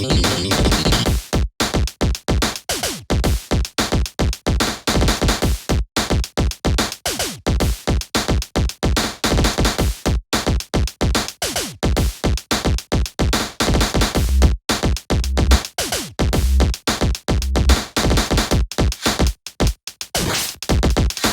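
Electronic music with a fast, choppy drum-machine beat and heavy bass hits.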